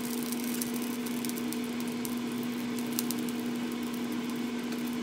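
Metal tongs turning steaks in an air fryer basket, with a few sharp clicks of the tongs against the basket, the clearest about three seconds in. A steady hum runs underneath.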